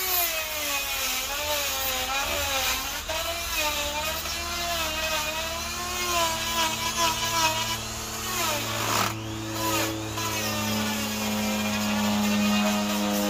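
Makita electric die grinder with a carving bur cutting into a wooden root ball, its motor whine wavering up and down in pitch as the bur bites in and eases off. About nine seconds in the pitch dips briefly, then the whine runs steadier toward the end.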